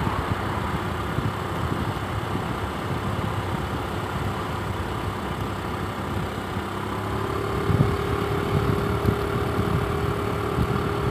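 Wind buffeting the microphone of a camera carried on a moving bicycle, over the rolling noise of its tyres on the asphalt bike path. A steady hum joins about seven seconds in.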